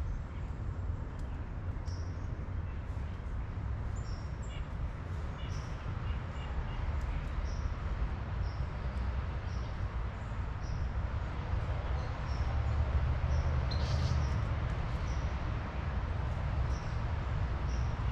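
Small birds giving short, high chirps every second or so over a steady low rumble, with a brief flurry of sharper sounds about two-thirds of the way through.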